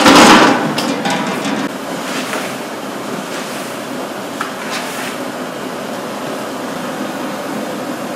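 Steady rushing of the fires under large steel cooking pots, with a few sharp clanks of stirring paddles and ladles against the metal pots, the loudest right at the start.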